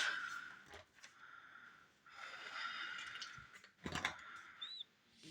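Magazine pages rustling as they are handled and turned, with a couple of light knocks about four seconds in.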